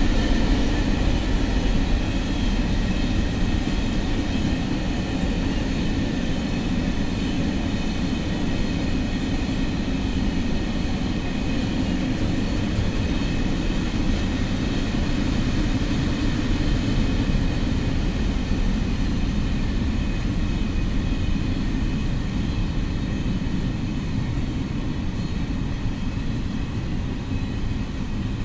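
Freight train wagons rolling past on the rails with a steady rumble and a few thin high squealing tones above it, gradually easing off as the train slows to stop in a siding.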